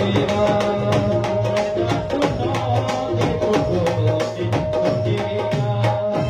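Amplified live devotional kirtan music: a fast hand-drum beat over a steady held note, with a man singing into a microphone.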